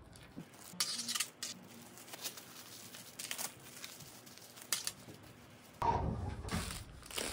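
Plastic cling film crinkling in a few short rustles as hands wrap a sandwich in it and press it flat. Near the end comes a louder rustling and handling of the wrapped sandwich on a wooden cutting board.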